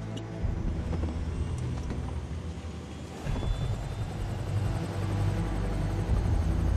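Helicopter running: a steady low rumble with a fast rotor chop, growing louder about three seconds in.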